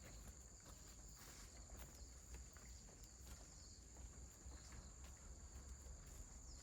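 Near silence: faint outdoor background with a thin, steady high tone and a few soft scattered ticks.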